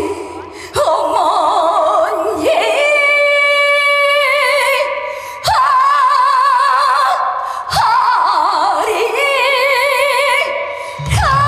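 A woman singing a trot song live, holding long notes with a wide, even vibrato and sliding between notes, over light accompaniment with little bass.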